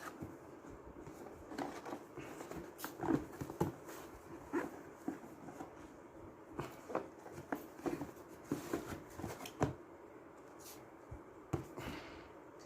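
Irregular light clicks and knocks of objects being handled by hand.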